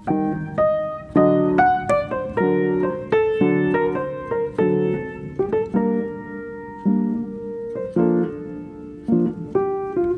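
Background piano music: a melody of struck notes and chords, each note starting sharply and left to ring and fade.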